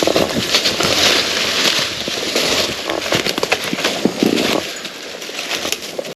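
Footsteps crunching and rustling through dry leaves and brush, a steady dense crackle of many small snaps.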